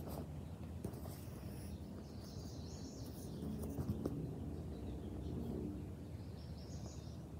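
Outdoor ambience: birds chirping faintly over a steady low background hum, with a soft thump on the gymnastics mat about four seconds in.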